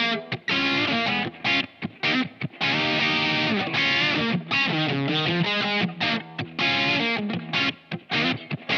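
SQOE SEIB400 electric guitar with HSS pickups played through distortion and effects: short clipped notes and chords at first, then longer held chords, with brief stops between phrases.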